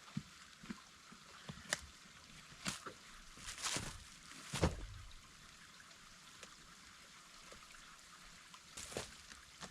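Scattered knocks and cracks of wood, sticks and logs being handled, over a steady hiss. The loudest is a dull thump about four and a half seconds in, and after it there is a long lull with one more knock near the end.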